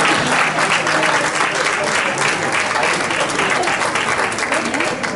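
Audience applauding, a dense clatter of many hands clapping that thins out near the end.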